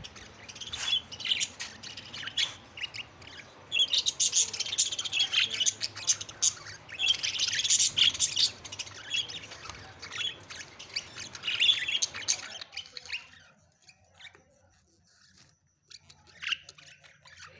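A flock of budgerigars chattering and chirping in rapid, overlapping high calls with occasional squawks. The chatter dies down about twelve seconds in, leaving only a few scattered chirps.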